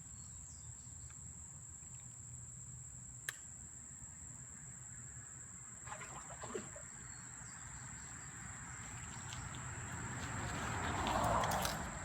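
Crickets or similar insects keeping up a steady high-pitched trill over faint creekside background noise. A rushing noise swells up near the end and fades, with a sharp click about three seconds in and a few soft knocks about halfway.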